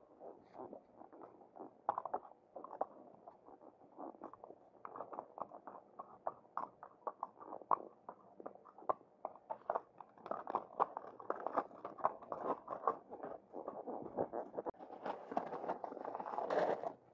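A horse's hooves knocking, scuffing and crunching on sandstone rock and a stony dirt track at an uneven beat, with denser, louder crunching near the end.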